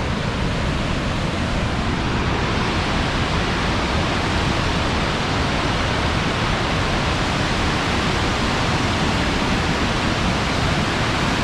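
Flooded waterfall pouring at full force, a steady, loud roar of rushing water.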